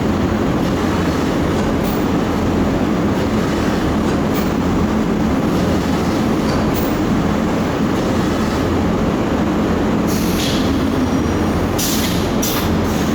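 Automatic cutting machine running steadily with a loud, continuous mechanical rumble and hum, and a few short sharp noises near the end.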